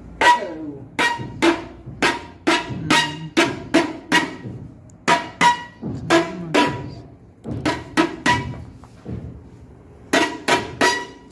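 A series of about twenty sharp knocks, irregularly spaced and loud, each ringing briefly at the same clear pitch.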